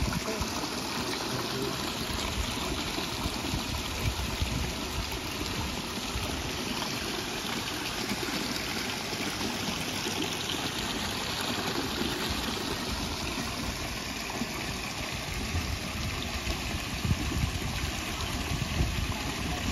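Water running steadily from a small cascade into a pool, splashing and trickling, with a low rumble underneath.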